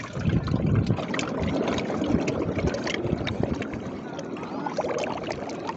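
Seawater washing and gurgling through gaps in the rocks as the incoming tide starts to rise, with a steady crackle of small trickles and splashes that swells and eases.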